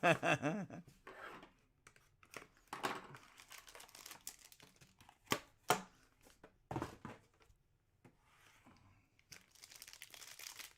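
Plastic wrapping being torn open and crinkled, with scattered sharp clicks and rustles as cards are handled.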